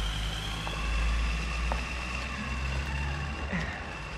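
Low, steady rumble of street traffic, loudest about a second in and easing off toward the end.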